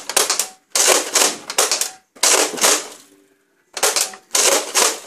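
Nerf Vortex Revonix 360 disc blaster firing its foam discs in a string of short clattering bursts, about six in all, each with a rapid run of clicks, with a pause of about half a second a little after three seconds in.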